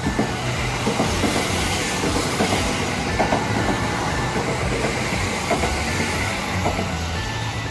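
Kintetsu 23000-series Ise-Shima Liner limited express passing through the station at speed: a steady rushing of the cars, with the clickety-clack of the wheels knocking over rail joints every second or so.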